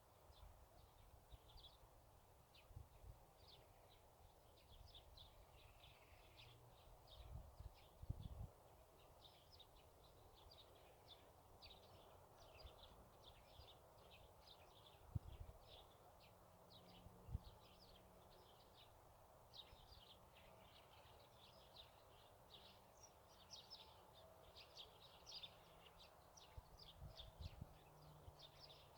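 Faint birdsong outdoors: many quick, high chirps from small birds going on throughout, with a few brief low thumps about a quarter, half and near the end of the way through.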